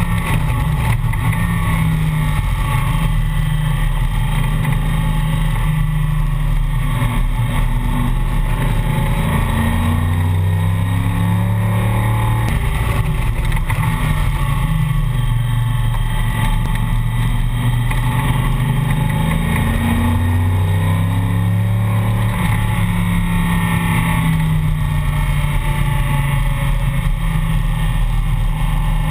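Backdraft TD roadster's engine at racing speed, heard from the open cockpit; its note rises and falls several times as the car accelerates and slows for corners.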